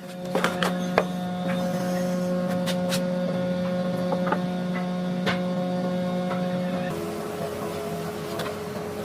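Steady electric hum of a running woodworking machine's motor, with light knocks and clicks of work on top; about seven seconds in the hum drops to a lower, quieter pitch.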